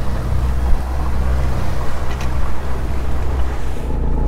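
Boat under way: a steady low engine hum with wind and water noise over it.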